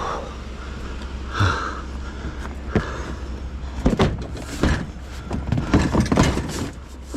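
A string of knocks and clatters from scrap and junk car parts being handled, sparse at first and coming thick and fast in the last three seconds, over a low steady hum.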